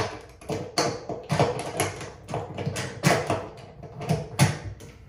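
Bathtub drain stopper being screwed into the drain by hand: a string of irregular clicks and light knocks of metal against the drain fitting and tub.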